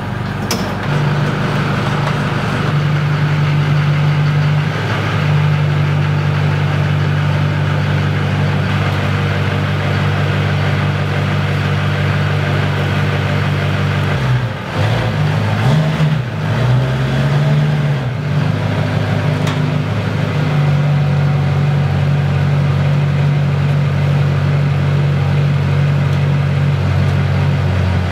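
Duramax 6.6-litre V8 turbodiesel of a 2003 GMC 2500HD running at a steady idle. About halfway through, the engine note rises and falls for a few seconds as the truck is driven into the shop, then settles back to an even idle.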